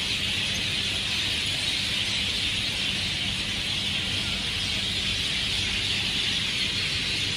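A large flock of birds in the trees calling all at once: a loud, dense, steady chattering din, high-pitched, without a break.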